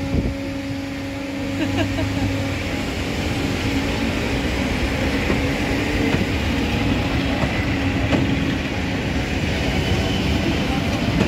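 EP3D electric commuter train pulling out of the station, its cars rolling past with a steady rumble and wheel noise. A steady hum fades out about two seconds in.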